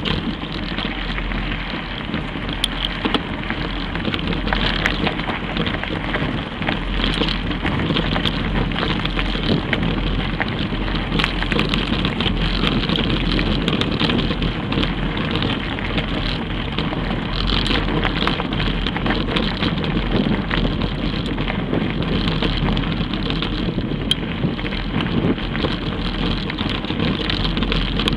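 Mountain bike riding over a rocky dirt trail, heard through a camera mounted on the handlebars: a steady rush of tyre and trail noise with frequent small clicks and rattles from the bike.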